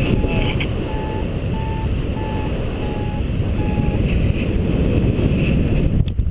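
Wind buffeting the microphone during paraglider flight, with a variometer sounding short, evenly spaced beeps, a little over one a second, that stop just before four seconds in. The beeping is the vario's climb tone, the sign that the glider is rising in lift.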